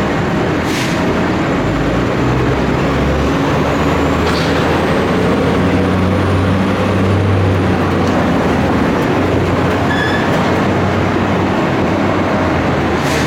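Heavy construction machinery running steadily and loudly: a low engine drone that swells and eases, with a thin high whine gliding upward partway through.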